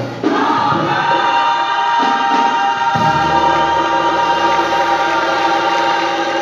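Gospel choir singing a long held chord, backed by keyboard and guitar with a steady bass note underneath.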